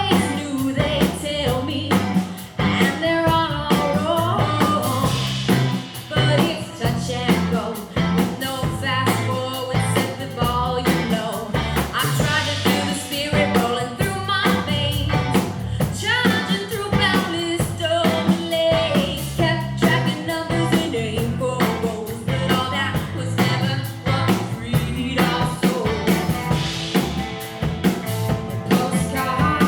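Live pop-rock band playing a song: Gretsch electric guitar, bass and drum kit keeping a steady beat, with lead vocals sung over it.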